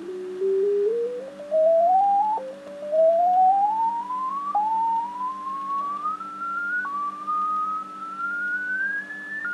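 Ten-Tec Omni V transceiver's audio: a single heterodyne whistle that rises steadily in pitch as the dial is turned, then drops suddenly back down about every two seconds, four times. The jumps are the tuning fault being shown.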